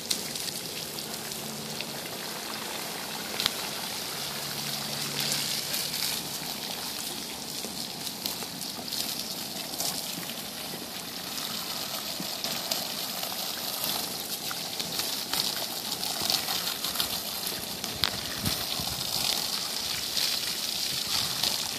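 Water from a garden hose spraying and splattering onto a bison's thick, wet coat: a steady hiss of spray.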